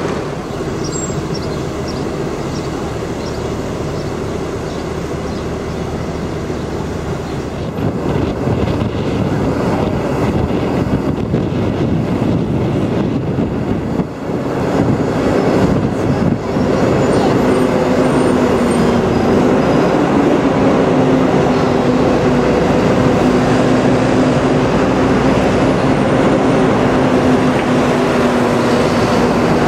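Steady road and wind noise of a moving tour bus heard from its upper deck, with engine, tyres and city traffic mixed in. From about halfway it grows louder, and a steady engine hum runs under it.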